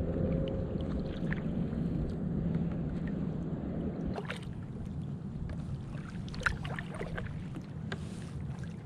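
Kayak paddle strokes splashing and dripping in the water, with short splashes from about halfway through, over a steady low rumble.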